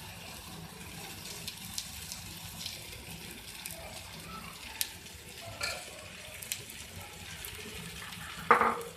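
Chilka batter and oil sizzling gently in a hot non-stick frying pan while a spoon spreads the batter thin, with a few light clicks of the spoon against the pan and one brief louder sound near the end.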